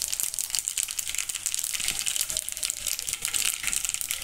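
Cumin and mustard seeds sizzling in hot oil in a kadai, a steady hiss with many small crackles: the tempering (vaghar) frying.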